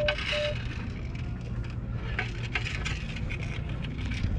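Metal detector giving two short, even beeps right at the start over a large buried target. Then scattered crackling clicks and scrapes as the spot is dug out, over a steady low rumble.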